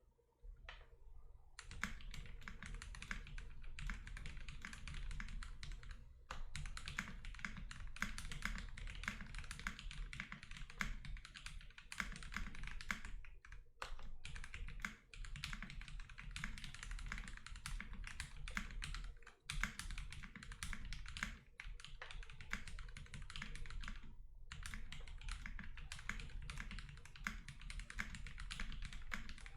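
Fast, continuous typing on a Zoom65 mechanical keyboard without case foam, fitted with lubed and filmed SP-Star Meteor White linear switches: a dense run of keystroke clacks that starts a second or two in, broken by brief pauses about six, fourteen and twenty-four seconds in.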